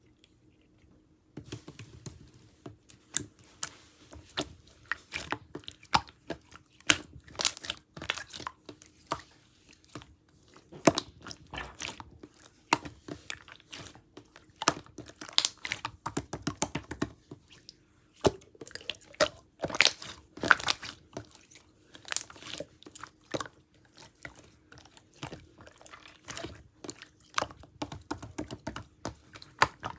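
Jelly slime being squeezed and pressed by hand, giving a dense, irregular run of small wet clicks and pops. They start about a second and a half in.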